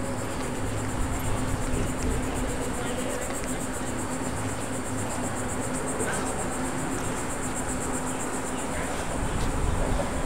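Insects chirring steadily, a high-pitched trill pulsing at an even fast rate, over a low steady rumble and hum.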